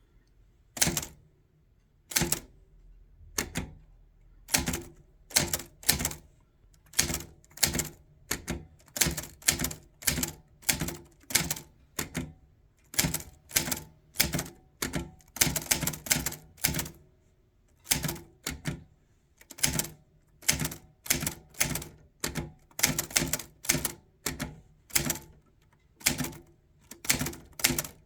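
Manual portable typewriter being typed slowly, one key at a time: sharp type-bar strikes against the platen about two a second, with a quicker run of keystrokes near the middle.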